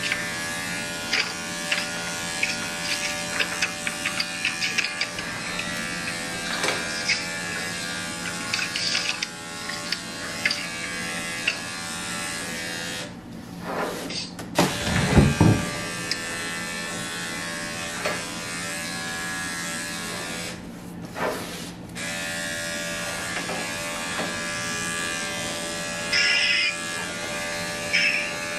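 Electric dog grooming clipper fitted with a guard comb running steadily as it clips fur from a puppy's legs. A low thump about halfway through is the loudest sound.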